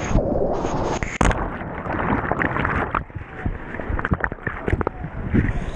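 Whitewater rapids rushing and splashing around a raft, with many sharp, irregular splashes and knocks.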